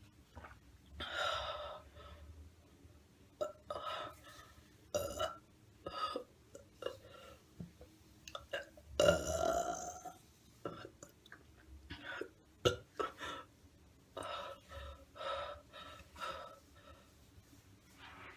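A young woman burping over and over, a string of short burps with one longer, louder burp about halfway through, her stomach bloated with water.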